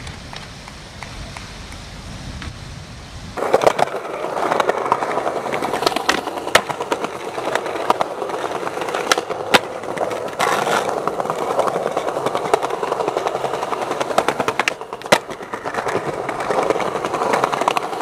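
Skateboard wheels rolling on smooth concrete, with sharp clacks of the board popping and landing several times. For about the first three seconds there is only a low, steady noise before the rolling starts.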